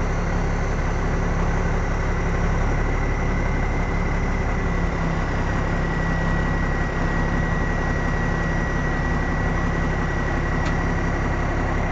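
Diesel engine of an International F5070 tandem-axle dump truck idling steadily while the raised dump body is lowered, with a thin steady high whine running through the engine sound.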